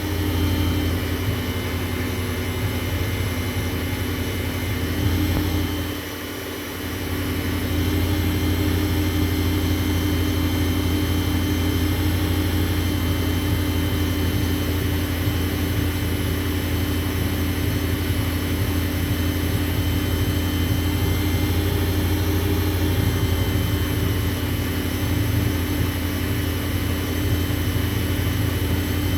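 Motor of a small WEN wood lathe running with a steady hum, spinning an acrylic pen blank while it is wet-sanded. About six seconds in the hum sags briefly, then comes back up to speed. This is typical of the 1/3-horsepower motor bogging down under sanding pressure.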